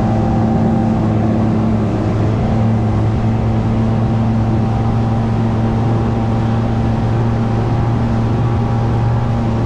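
Bass boat's outboard motor running steadily at cruising speed, an even engine drone of unchanging pitch over the rush of the wake.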